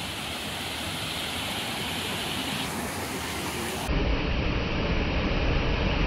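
Waterfall cascades rushing over rock ledges, a steady wash of white water. About two-thirds of the way through it turns louder and deeper.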